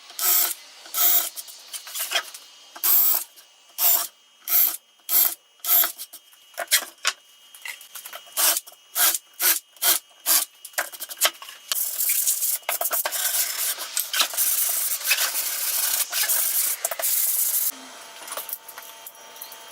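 Hand plane shaving wood in a quick series of short strokes, then a longer run of continuous scraping that stops suddenly near the end.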